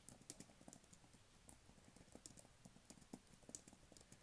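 Soft, close-up computer keyboard typing: an irregular run of light key clicks.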